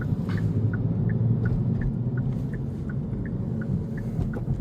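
Steady low engine and road-noise rumble inside a moving car's cabin, with a faint, regular light ticking about three times a second.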